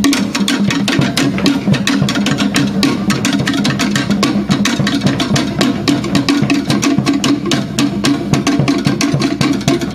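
Tahitian drumming: sticks beating wooden to'ere slit drums in a fast, unbroken rhythm of sharp strikes.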